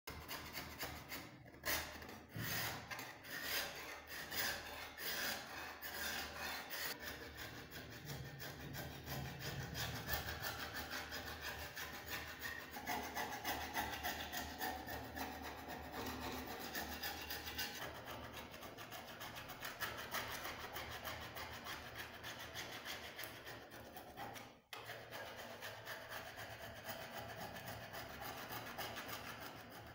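Rust being rubbed and filed off a rusty steel blade by hand, with abrasive strokes rasping against the metal in quick repeated passes. There is a brief break about three-quarters of the way through.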